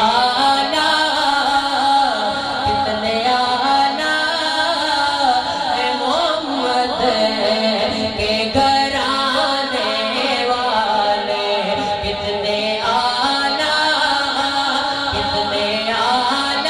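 A man singing a naat, an Urdu devotional poem in praise of the Prophet, into a microphone: one voice drawing out long, wavering melismatic notes.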